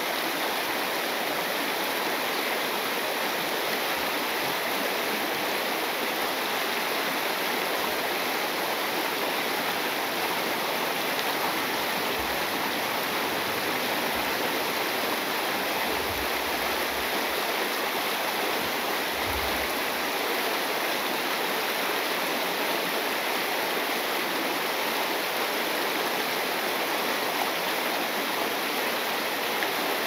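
Waterfall and shallow river rapids rushing steadily: a constant, even roar of falling and tumbling water.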